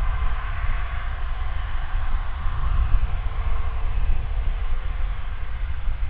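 Airbus A340-600's four Rolls-Royce Trent 500 jet engines running as the airliner rolls slowly along the runway: a steady rushing jet noise over a low rumble.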